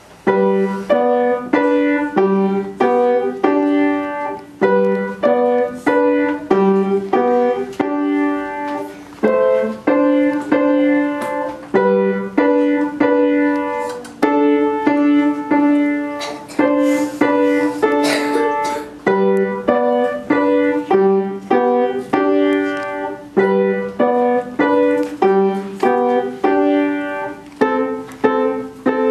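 Upright piano played by hand: a run of separately struck notes and chords, each one ringing and fading, in a steady rhythm.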